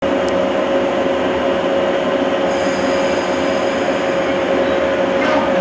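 Electric train standing at a platform, its onboard equipment giving a steady hum with a constant whining tone. A higher, thinner whine joins about two and a half seconds in.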